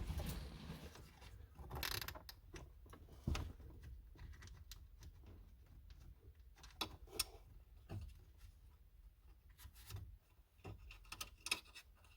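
Socket ratchet clicking in short, irregular runs, with small knocks of the tool against metal and plastic, as a dash-pad retaining nut is worked loose.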